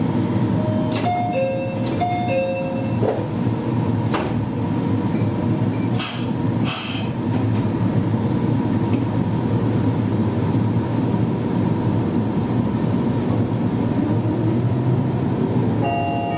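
Meitetsu 1200 series electric train running on the rails, heard from inside the leading car, with steady motor and wheel noise. A short two-note chime sounds twice about a second in, and a few sharp knocks come from the running gear a few seconds later.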